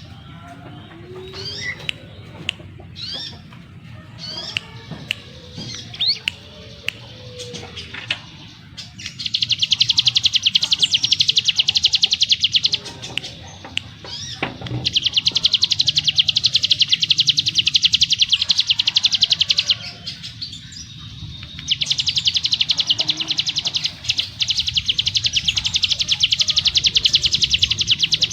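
Hill prinia (ciblek gunung) singing: scattered short rising chirps for the first several seconds, then three long, fast trills of rapidly repeated high notes, each several seconds long with short pauses between. A faint low hum runs underneath.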